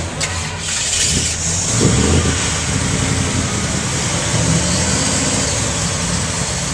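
A car engine running, a steady low rumble with a brief swell about two seconds in.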